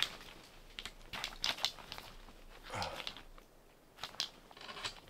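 Tent fabric rustling and crinkling, with scattered sharp clicks and knocks from the tent's central pole and umbrella hub as it is pushed to collapse the frame. A short low grunt-like voice sound about three seconds in.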